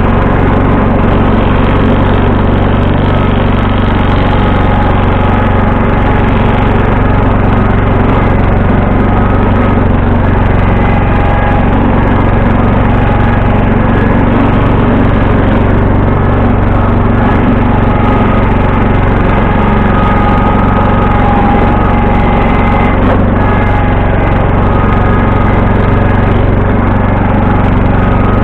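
1974 John Deere 140 H3 garden tractor's engine running steadily, with no change in speed.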